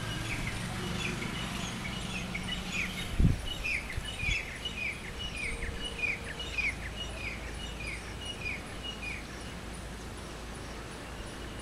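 A bird calling in a long series of short, falling chirps, about two a second, that stops near the end. A single loud thump comes about three seconds in.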